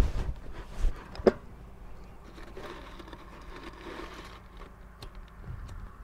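Metal bee smoker being handled: a couple of sharp knocks in the first second and a half, then a soft hiss for about two seconds.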